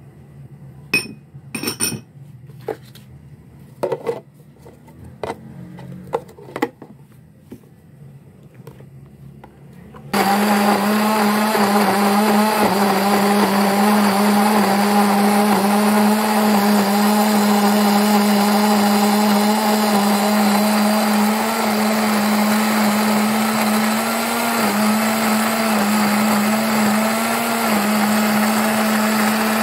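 A few sharp clicks and knocks. Then, about ten seconds in, an electric blender starts abruptly and runs steadily with a strong hum, grinding coconut, coconut water, coconut milk and milk powder into a paste.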